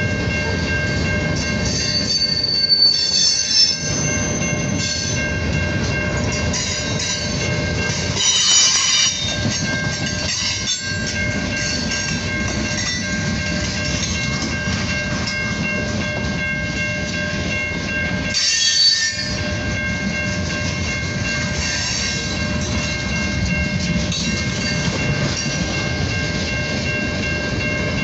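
Freight cars of a long manifest train rolling past close by: a steady rumble of wheels on rail, with sharp high-pitched wheel squeal flaring up three times, a few seconds in, at about a third of the way, and around two-thirds of the way through.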